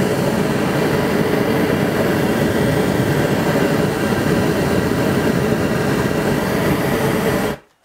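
Homemade gas foundry burner running with a blue flame: a steady, even rushing noise that cuts off suddenly near the end.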